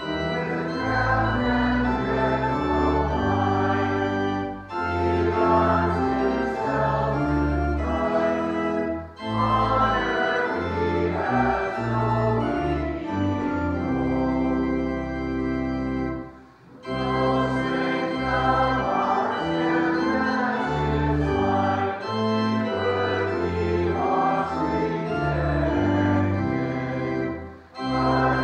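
Church organ playing a hymn tune in sustained chords with a congregation singing along, pausing briefly between the lines of each verse.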